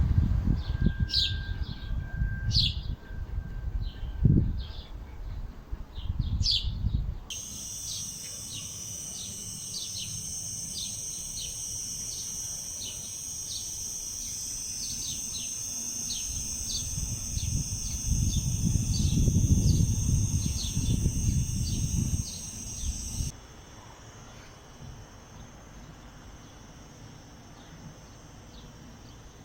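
Outdoor nature ambience: small birds chirping over a low rumble of wind on the microphone. About seven seconds in it changes to a steady high insect drone with regular chirps about twice a second, with more wind gusts. It drops quieter shortly before the end.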